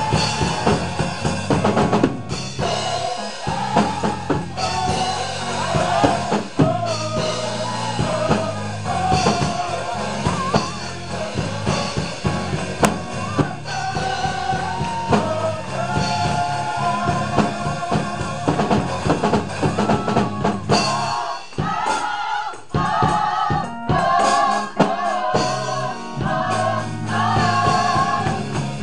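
Gospel choir singing with a band, a drum kit and bass line keeping a steady beat. About 21 seconds in the bass drops out for a couple of seconds, leaving drum hits, before the full band and voices come back in, the singing pitched higher.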